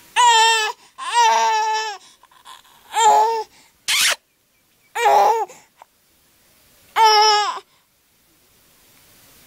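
A toddler of about a year and a half making short, high-pitched babbling calls, about five in all, the second one longer than the rest. A sharp click about four seconds in.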